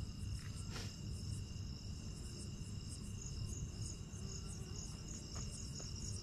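Crickets chirping: several steady high trills and a higher pulsing chirp, over a low background rumble.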